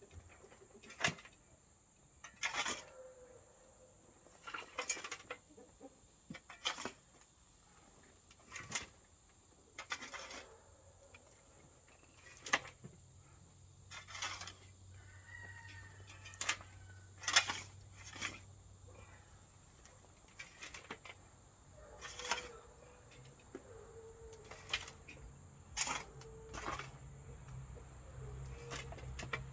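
Irregular knocks and short scrapes, about one every one to two seconds, from a shovel working dirt and manure. A faint low hum grows in the second half.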